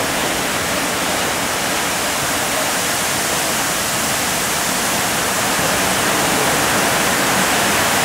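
Crushed stone aggregate pouring from a hopper railcar's open bottom outlet doors onto a steel grate. The result is a loud, steady hiss.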